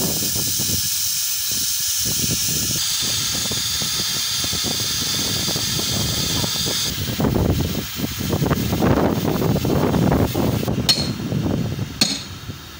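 Air hissing steadily out of a truck tyre, cutting off about seven seconds in. Then steel tyre levers scrape and knock against the wheel rim as the bead is pried, with a few sharp metal clinks near the end.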